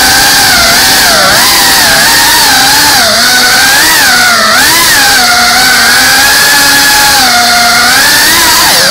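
FPV drone's electric motors and propellers whining loudly, the pitch swooping up and down constantly as the throttle changes, heard from the drone's own onboard camera.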